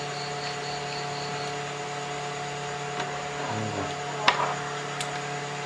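Two sharp plastic clicks over a steady hum: the rocker switch of a power strip being flipped while it is tested.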